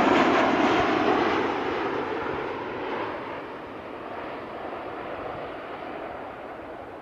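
Jet engine noise from a Boeing 737 passing low with its landing gear down, fading steadily as it moves away on its landing approach.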